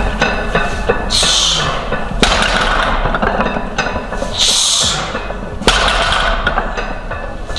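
Heavy barbell deadlift reps with Rogue bumper plates: a sharp hissing breath about every three seconds, and twice a knock as the plates touch down on the lifting platform.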